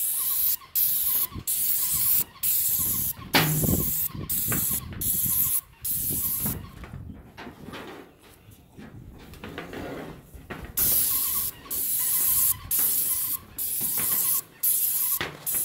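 Titan 440 airless paint sprayer's spray gun hissing in short bursts, roughly one a second, as the trigger is squeezed and released to spray roof paint. There is a lull of a few seconds in the middle.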